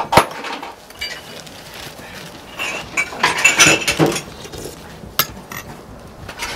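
A metal spatula clinking and scraping against a plate, with a sharp clank just after the start and a cluster of clinks and scrapes around the middle.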